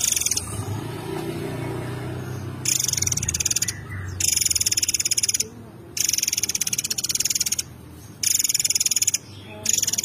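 Caged murai air mancur songbird singing four high, rapid rattling trills in a row, each about a second long with short pauses between them, beginning a few seconds in.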